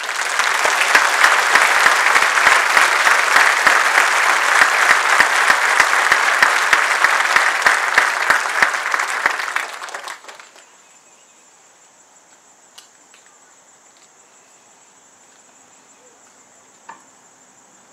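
Crowd applauding for about ten seconds, then dying away, leaving the steady high chirring of insects.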